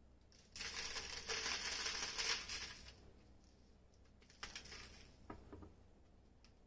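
Crushed roasted almonds being pressed onto the side of a cake, crumbs scattering onto parchment paper in a dense rustle for about two seconds, then a few shorter rustles.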